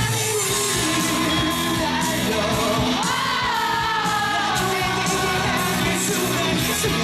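Live rock band playing the opening of a song at full volume: drums and guitars with a melody line gliding over them.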